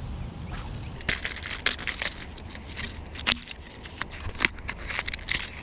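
Plastic crinkling and rustling as it is handled, in an irregular run of sharp crackles starting about half a second in.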